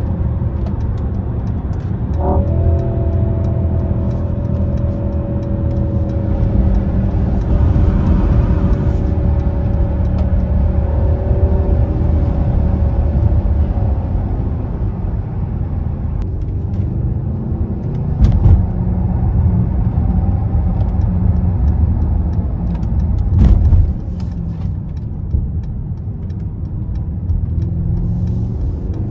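Twin-turbo hybrid V8 of a 2022 Mercedes-AMG GLE 63 S heard from inside the cabin at highway speed, with a steady low drone. The engine note steps up about two seconds in, then slowly falls. Two sudden loud bangs come near the 18- and 23-second marks.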